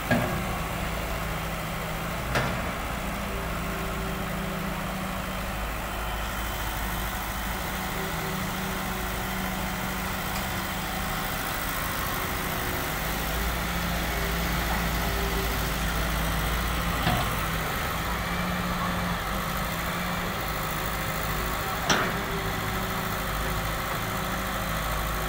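John Deere 595D wheeled excavator's diesel engine running steadily as it digs and loads rubble, with a few sharp knocks from the bucket working the brick rubble.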